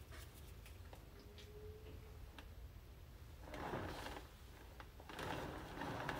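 Metal offset spatula spreading icing over a cake layer: faint scraping, with two brief louder smearing passes about halfway through and near the end, and a few light clicks at the start.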